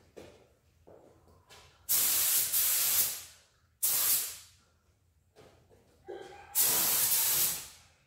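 Spray gun spraying primer in three bursts of hiss as the trigger is pulled for each pass: about a second and a half, then a short one, then about a second. Each burst fades out as the trigger is let go.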